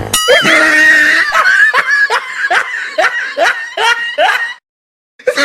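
A person's high snickering laugh in quick rhythmic pulses, about two and a half a second. It breaks off into dead silence about four and a half seconds in, then starts again the same way just before the end, like a looped laughter sound effect.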